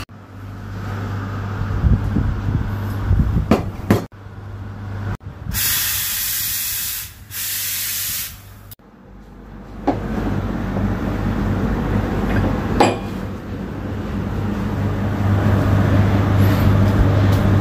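Espresso machine steam wand hissing in two long blasts about five to nine seconds in. A steady low hum and rushing noise runs under it and grows louder in the later part.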